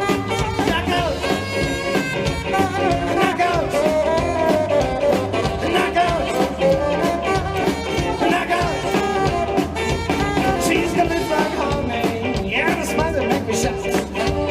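A rockabilly band playing an instrumental break live: a lead melody wanders over a steady drum beat and bass.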